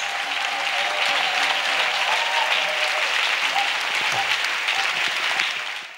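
A large congregation clapping, a dense even applause with a few voices calling out faintly through it; it fades out near the end.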